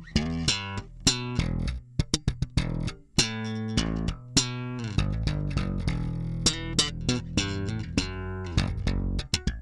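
Background music: a run of plucked string notes over a sustained bass line.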